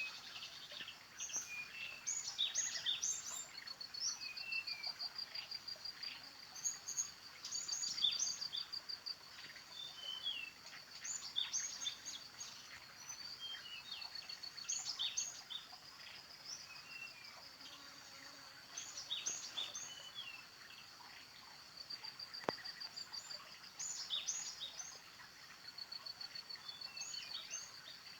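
Birds calling: many short, sharp high chirps and a fast ticking trill of a second or two that recurs several times, over a steady high-pitched hum. A single sharp click about two-thirds of the way through.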